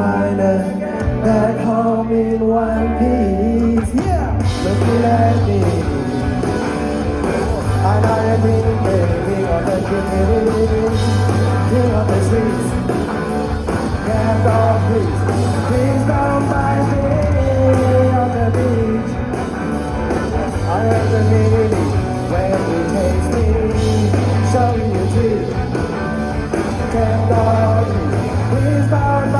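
Rock band playing live through a large outdoor PA: singing over a heavy bass line and band, from about 4 seconds in with fuller, brighter instrumentation.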